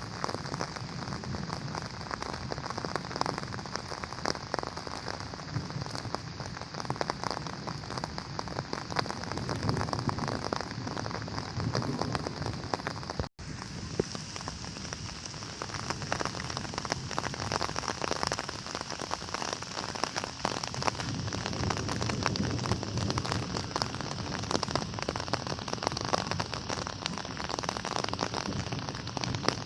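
Steady rain falling, a dense hiss of many small drop taps on surfaces, with a momentary break about halfway through.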